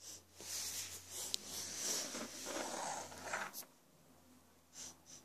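Rustling and scraping of things being handled close by, with a sharp click partway through the first few seconds, then it goes quieter.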